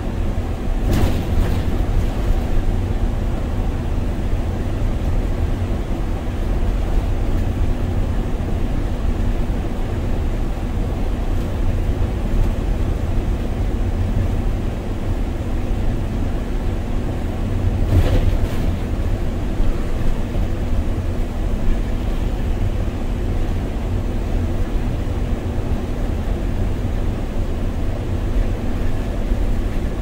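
Inside the driver's cab of a MAN Lion's City city bus with a biogas engine, driving at speed on a snow-covered road: a steady low rumble of engine and road noise, with two brief louder noises, about a second in and about eighteen seconds in.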